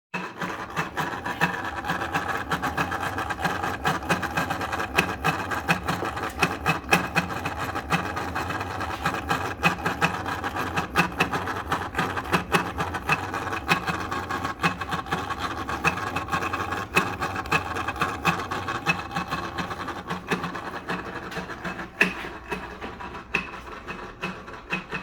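Steady mechanical whirring with rapid ticking from a 2013 BMW X5 that keeps running after the engine has been switched off, with one sharper click near the end.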